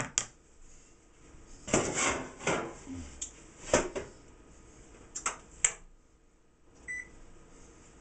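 Light kitchen handling: a plastic spatula is set down on a wooden butcher-block table among scattered knocks and clatters of utensils, with a short high tone near the end.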